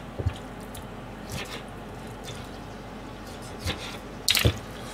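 Kitchen knife slicing through raw chicken onto a plastic cutting board: a few soft, wet cuts and taps, with a louder cluster of knife strikes near the end.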